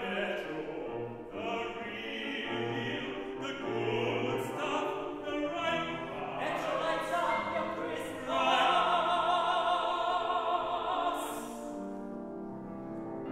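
Operatic singing with grand piano accompaniment. About eight seconds in, soprano, tenor and baritone sing together in a louder held passage with wide vibrato, which fades out near the end.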